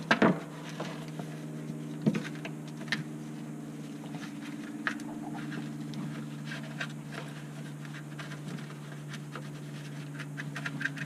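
Gloved hands rummaging among the wiring and fittings inside a RIB's console: scattered clicks, taps and knocks of plastic and metal parts being handled, with the loudest knocks just after the start and about two seconds in. A steady low hum runs underneath.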